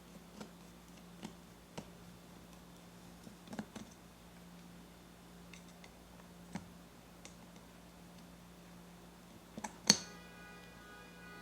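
Scattered light metallic clicks and taps of a screwdriver working on the burr and its screws in a Mazzer Mini coffee grinder. Near the end comes one sharp metal clink that rings on for about two seconds, over a faint steady hum.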